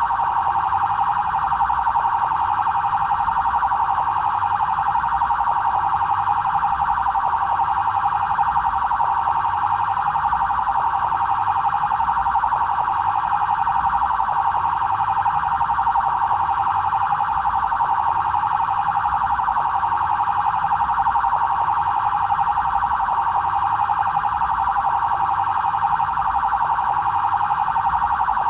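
BAEP police vehicle siren sounding continuously on its 'trail' tone, an even, unbroken pattern pitched around the middle of the range, with no slow rise and fall.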